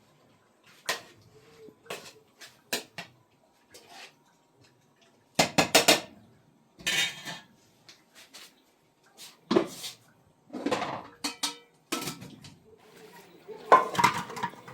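Dishes and metal utensils clinking and clattering: an irregular string of sharp knocks and clinks, a few of them ringing briefly, with a loud cluster about five seconds in and another near the end.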